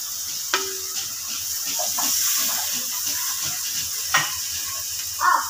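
Spiced masala and vegetables sizzling in a hot kadai, a steady hiss, with a sharp metal clink against the pan about half a second in and another near four seconds.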